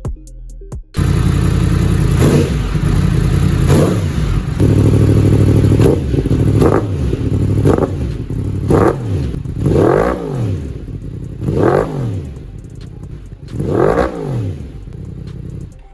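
Yamaha R1M's crossplane inline-four engine running after its rebuild, coming in about a second in and running steadily, then blipped through about six quick revs that rise and fall in pitch.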